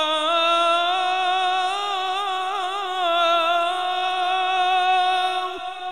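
A man reciting the Quran in melodic tajweed style, drawing out one long held phrase through a microphone, with quick wavering ornaments in the middle; it tails off near the end. It is the drawn-out close of "rabbana wa taqabbal du'a".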